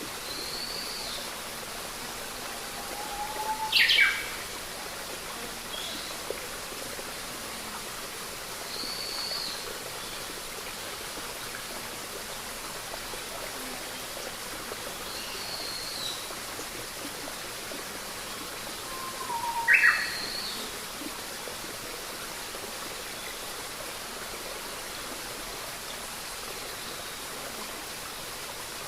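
Birds calling over a steady rushing background hiss: a few short high chirps, and twice a louder sharp call dropping in pitch, about four seconds in and again about twenty seconds in, each just after a lower whistled note.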